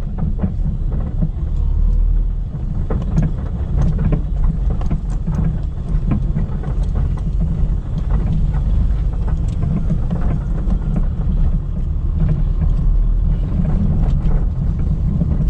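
Car driving over a rough, potholed street: a steady low road rumble with repeated loose clacks and knocks from the front suspension as the wheels hit the bumps. The clacking comes from a worn shock absorber (strut) mount with a large gap to the body, which lets the shock absorber jump about in its seat.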